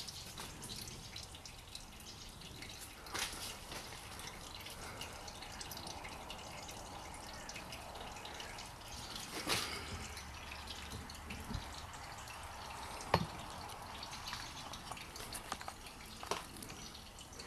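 Engine oil dripping and trickling from the sump drain hole into a drain pan, with a few sharp knocks.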